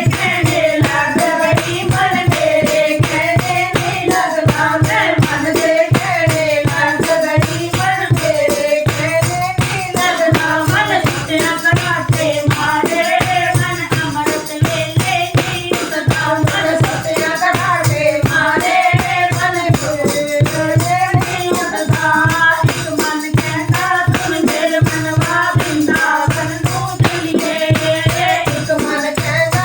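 Devotional bhajan music: a wavering melody line over a steady drum beat, about two strokes a second, with jingling hand percussion.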